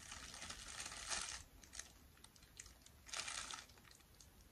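Clear plastic packaging around a pair of socks crinkling faintly as it is handled and turned over, in two spells: through the first second or so, and again briefly about three seconds in.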